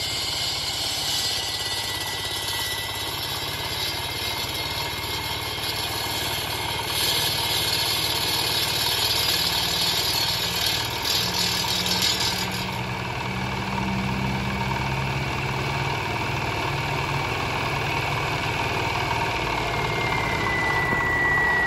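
Asphalt cutter driven by a swapped-in Dongfeng single-cylinder diesel, running steadily while its blade cuts the road surface under a stream of water. A high grinding hiss stops about thirteen seconds in, leaving the engine and a steady high whine from the blade.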